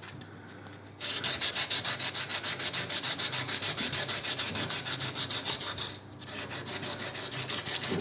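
Fast back-and-forth hand rubbing strokes, about six a second, starting about a second in, with a brief break about six seconds in.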